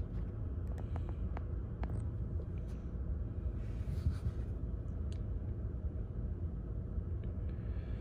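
The 2019 Chevy Equinox's 1.5-litre inline-four idling steadily, heard from inside the cabin, running on four new spark plugs. A few faint clicks come in the first two seconds.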